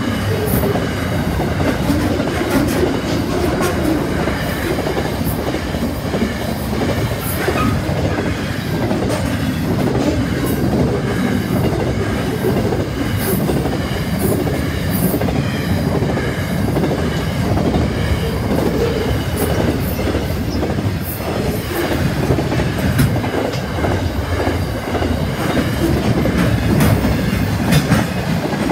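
Freight train wagons rolling past close by at steady speed: a continuous rumble of steel wheels on rail, with irregular sharp wheel clicks over the rail joints.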